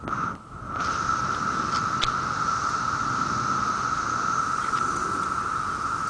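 Chorus of cicadas droning steadily at one high pitch, dipping briefly just after the start.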